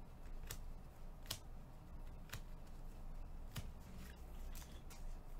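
Baseball trading cards being flipped through and handled in gloved hands: sharp card-on-card clicks about once a second, over a steady low hum.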